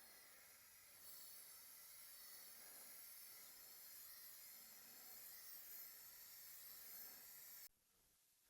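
Aerosol spray paint can spraying: a steady faint hiss that gets stronger about a second in and cuts off abruptly near the end as the nozzle is released.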